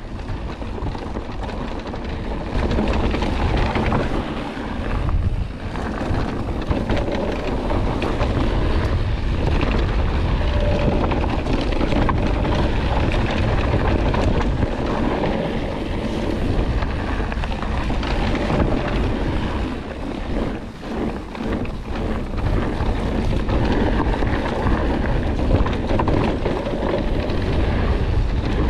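Wind buffeting the microphone over the rolling rumble and rattle of a mountain bike riding a rough dirt trail.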